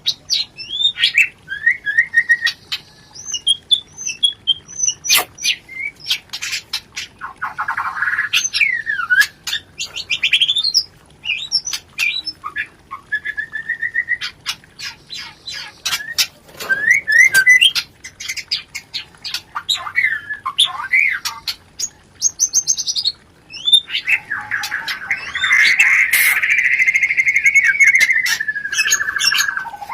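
Murai (white-rumped shama) in breeding condition, giving rapid chattering 'rencetan' calls mixed with short whistled phrases and sharp ticks. It breaks into a dense, continuous chatter for the last several seconds. This is the aroused mating call used as a lure to bring other murai into breeding mode.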